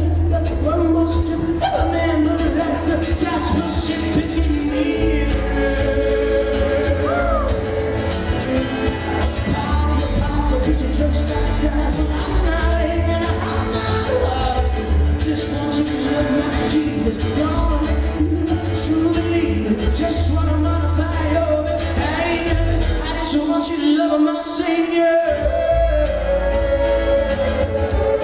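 Live acoustic band playing: strummed acoustic guitar, upright bass and fiddle, with a man singing lead. The bass drops out for a moment about 24 seconds in.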